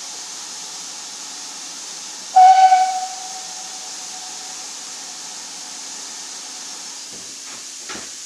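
Steam locomotive whistle: one short blast about two seconds in that dies away over a couple of seconds, over a steady hiss of escaping steam.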